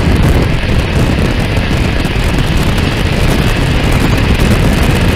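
Wind rushing over a camera mounted low on the side of a moving car, mixed with tyre and road rumble from the wheel beside it. A loud, steady, low-heavy rumble that cuts off suddenly just after the end.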